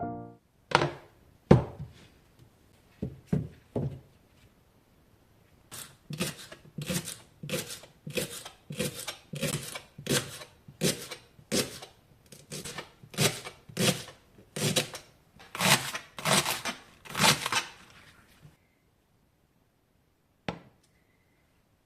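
Kitchen knife chopping on a cutting board: a few separate knocks, then a steady run of strokes about two a second that stops a few seconds before the end.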